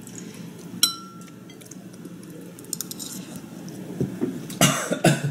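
A metal spoon clinks sharply against a glazed ceramic bowl about a second in, with a short ring. Fainter clicks and scraping of the spoon in the bowl follow near the end.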